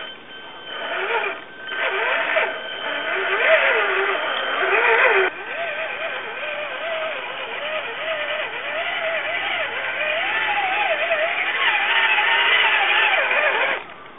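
Electric drive motor and gearbox of an RC4WD Trail Finder 2 scale crawler whining, the pitch rising and falling constantly with the throttle over a hiss of noise. The sound breaks off sharply about five seconds in and carries straight on.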